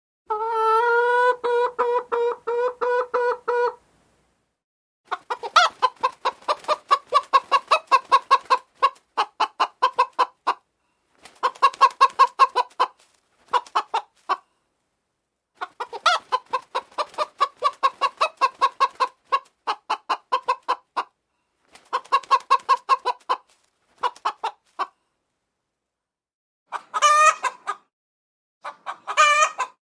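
Hens clucking. A long drawn-out call opens the passage, followed by bouts of rapid, repeated clucks separated by short silent pauses, and a few higher rising-and-falling calls near the end.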